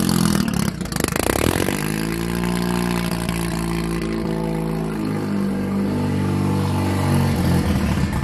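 Single-turbo Mazda RX-7 FD3S's twin-rotor rotary engine running, its pitch stepping up and down a few times, with a brief crackling patch about a second in.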